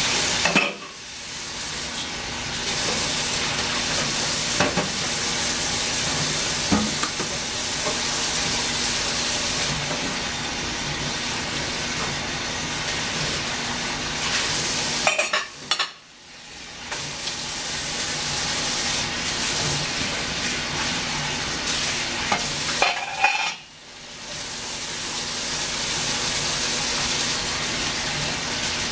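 Kettle hissing as the water heats toward the boil. The steady hiss has a few light clicks and breaks off sharply three times, each time building back up over a second or two.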